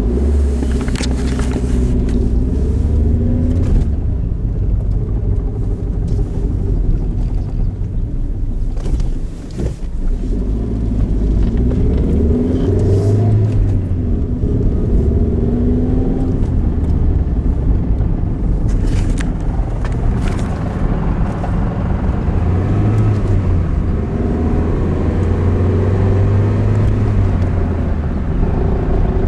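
1997 Ford Escort with a 5-speed manual gearbox being driven, with a steady low rumble. The engine note rises several times as it pulls and holds steady in between. The car has a rattle when coasting, which was traced to the manual transmission.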